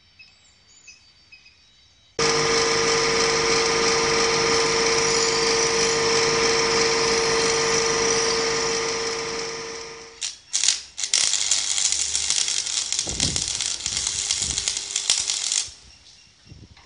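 Bench grinder grinding steel, starting abruptly about two seconds in: a loud, steady noise with a strong hum from the motor, fading away about ten seconds in. Then comes a rougher, uneven noise with sudden spikes from arc welding, which stops abruptly shortly before the end.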